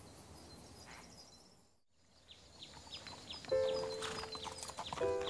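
Soundtrack of an animated scene. Faint outdoor ambience gives way to small birds chirping with quick falling calls, and about three and a half seconds in, background music with long held notes starts over light horse hooves clopping on a trail.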